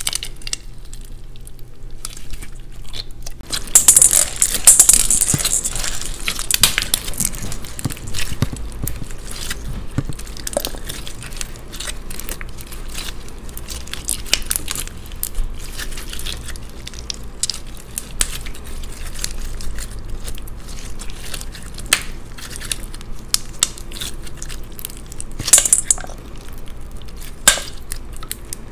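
Clear slime studded with small plastic beads squeezed, stretched and torn apart by hand over a stainless steel bowl: a run of sticky crackles and clicks. It starts softly, then grows loud about four seconds in and again near the end.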